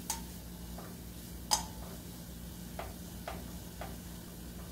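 Wooden spoon knocking against a small stainless steel saucepan while stirring a butter-and-flour roux: about six light clicks, the loudest about a second and a half in.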